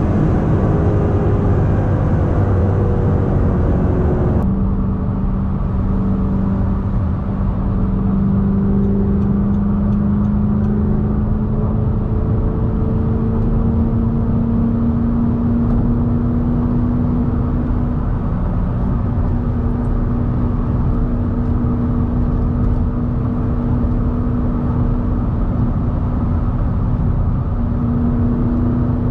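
Audi R8's 4.2-litre V8 engine running at speed over road and tyre noise. About four seconds in the note changes abruptly, then its pitch creeps slowly upward as the car keeps gaining speed.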